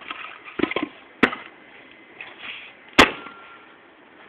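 Axe splitting firewood on a chopping block: a sharp chop about a second in and a louder one about three seconds in, with a few lighter knocks of wood shortly before the first.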